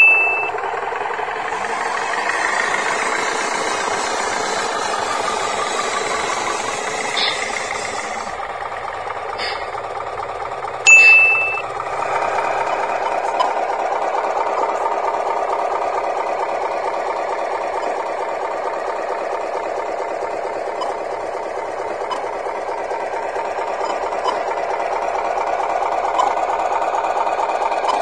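Steady engine sound from a radio-controlled Hino dump truck model, with a fast even beat, louder from about twelve seconds in. A short, bright ding cuts in sharply three times: at the start, at about eleven seconds, and at the end.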